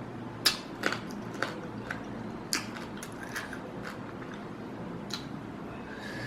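Close-up eating sounds of someone biting and chewing spicy chili prawns: a series of sharp, irregular clicks and crunches, about ten in all, with the loudest about half a second in.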